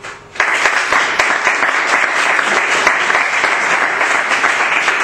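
Audience applauding: dense clapping breaks out suddenly about half a second in and goes on steadily.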